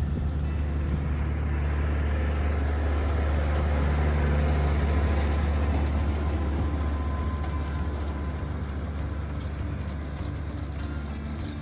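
Tractor engine running steadily while baling hay with a round baler, a low, even drone that gets a little louder in the middle and eases off near the end.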